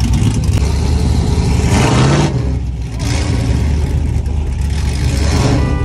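Pickup truck engine running loud with a deep low rumble, revving up around two seconds in.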